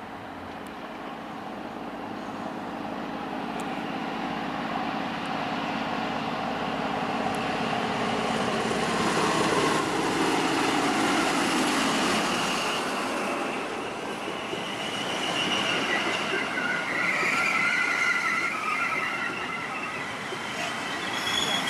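NSW TrainLink XPT approaching and passing: the diesel engine of the power car gets steadily louder over the first ten seconds or so. Then the carriages roll by with high-pitched wheel squeal through the second half.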